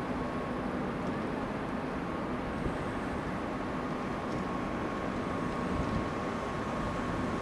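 Class 146 electric locomotive hauling double-deck coaches as it approaches over the station tracks: a steady low rumble with a faint, thin, steady whine above it.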